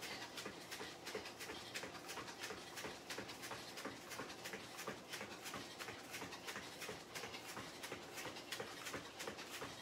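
Rapid footfalls of high knees, feet landing on interlocking rubber floor mats in a fast even rhythm of about three to four steps a second.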